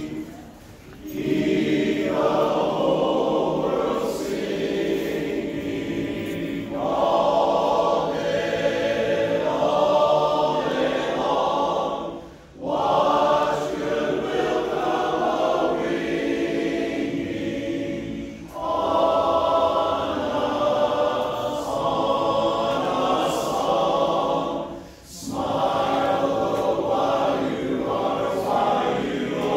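Men's barbershop chorus singing a cappella in four-part harmony, in phrases broken by short breath pauses about a second in, then near 12, 18 and 25 seconds.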